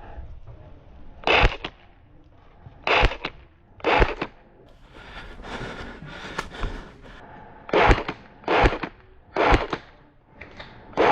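Airsoft electric rifle (an HK416 A5 AEG replica) firing single shots: about six sharp shots with uneven gaps, each a short clack with a deep thump.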